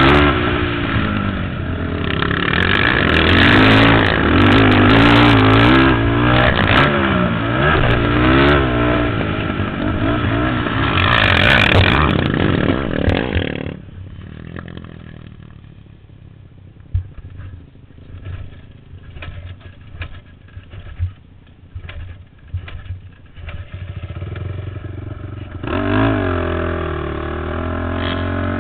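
450-class sport ATV engine being ridden hard, its pitch repeatedly rising and falling with throttle and gear changes. About 14 seconds in the sound drops suddenly to a much fainter engine with scattered knocks and clicks. The engine comes back louder a few seconds before the end.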